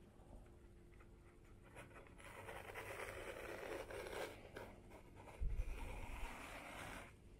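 Pen scratching along paper as it traces around the edge of a carbon fiber plate, a soft scratching that starts about two seconds in, with a dull thump or two of handling midway through.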